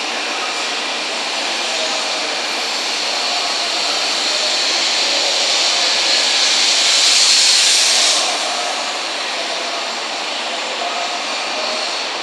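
N700 series Shinkansen train departing, its cars rolling past with a steady high rushing hiss as it gathers speed. The hiss swells about seven seconds in and drops off sharply a second later.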